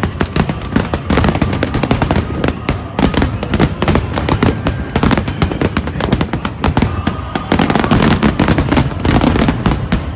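Aerial fireworks in a dense barrage: rapid, overlapping bangs and crackles with no gaps, cutting off suddenly near the end.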